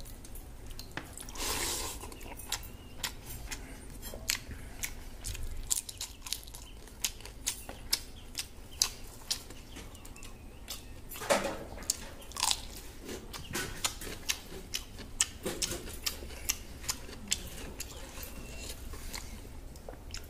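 Hand mixing and squeezing water-soaked rice (pakhala) in a steel bowl and eating it: wet squelches, many short sharp clicks and smacks, and chewing, with a few louder wet bursts.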